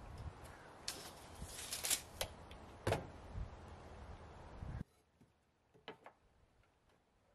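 Wind rumbling on the microphone with scattered sharp clicks and taps from handling a tape measure and wooden boards; about five seconds in the sound cuts off suddenly to near quiet with a few faint ticks.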